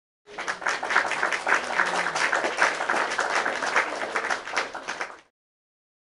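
Crowd applause with dense clapping, starting suddenly and cutting off abruptly about five seconds later, like a stock applause sound effect added under an end card.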